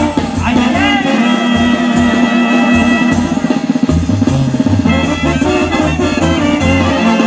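Band music with brass and drums playing a steady beat, with held trumpet-like notes.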